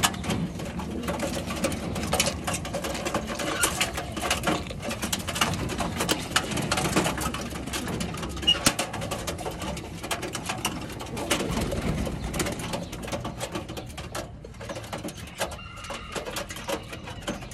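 Rock pigeons cooing in a loft, low and repeated, mixed with many small sharp clicks and knocks.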